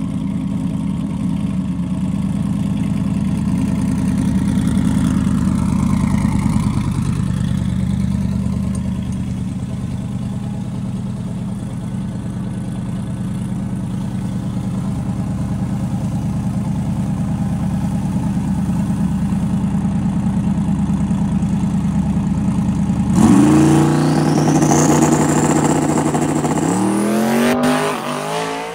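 Twin-turbo 2010 Dodge Challenger drag car idling steadily at the starting line, then, after a little over twenty seconds, launching hard: the engine revs climb steeply with a rising turbo whine, one gear change, and the sound fades as the car pulls away down the track.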